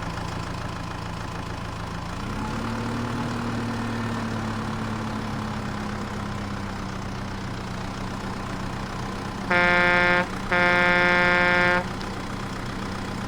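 Cartoon truck sound effect: a steady engine hum that rises slightly in pitch about two seconds in, then a horn honked twice near the end, a short blast followed by a longer one.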